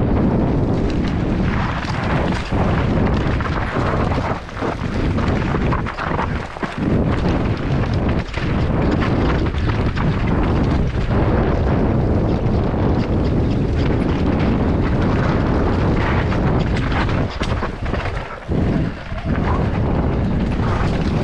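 Heavy wind buffeting on a rider-mounted action camera's microphone, over the rumble and rattle of a mountain bike descending a rough, rocky dirt trail. The noise is loud and unbroken, with brief drops in level.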